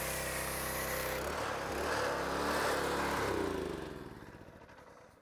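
Small gasoline engine of a pressure washer running under load, with the hiss of the foam cannon spraying. After about a second the engine's pitch wavers, and from about three and a half seconds in the sound fades away.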